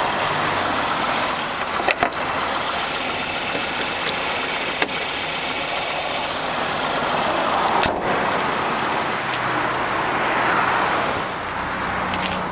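The 2008 Mazda CX-7's 2.3-litre turbocharged four-cylinder idling steadily. Sharp clanks come about two seconds in as the hood prop rod is handled, and a louder thud comes near eight seconds as the hood is shut.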